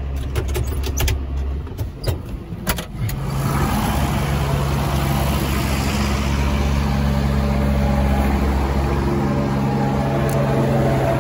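Farm tractor engine running steadily, driving a vertical mixer feed wagon through its power take-off shaft, with a few sharp clicks and knocks in the first three seconds. About three seconds in the machinery sound gets louder and fuller and holds steady.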